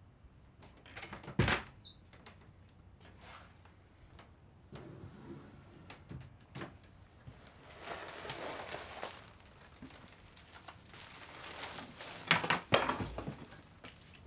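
A door shutting with a single thunk about a second and a half in, then quiet movement: a stretch of clothing rustle, and a cluster of sharp knocks and clicks near the end as things are handled.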